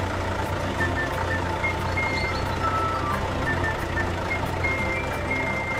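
Cartoon sound effect of a dump truck tipping its load: the engine running and crushed asphalt pouring out of the raised bed, a steady dense noise, with short high music notes over it.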